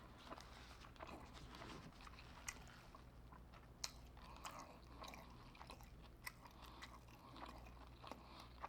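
Faint close-up chewing of fried seafood: wet mouth smacks and a few sharper crunchy clicks, the loudest about four seconds in.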